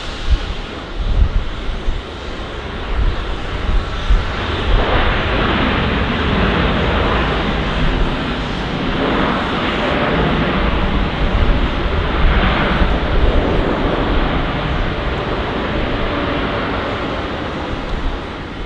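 Boeing 787 jet engines at high thrust on its takeoff roll down a flooded runway, a loud steady engine noise mixed with the hiss of spray, swelling about four seconds in and holding. Wind buffets the microphone with low thumps in the first couple of seconds.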